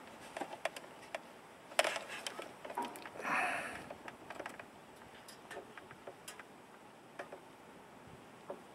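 Faint scattered clicks and taps from handling a digital multimeter and its test leads at the car battery, with a short rustle about three seconds in.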